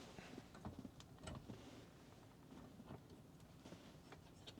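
Near silence: faint scattered small clicks and rustles of handling inside a vehicle cabin.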